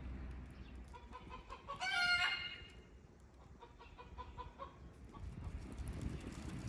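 Chickens clucking in short repeated notes, with one louder, longer call about two seconds in.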